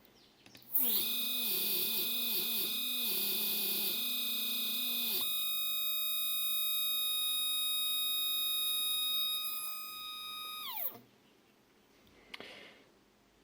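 Two stepper motors driven in parallel from one controller, running with a loud electrical whine made of several pitches, with a warbling beat underneath. About five seconds in the warble stops and a steady high whine remains; the speaker links this to one motor stalling while the other runs quieter. Near the end the pitch glides down as the motor slows and stops. The speaker suspects the back EMF of one motor is disturbing the controller for the other.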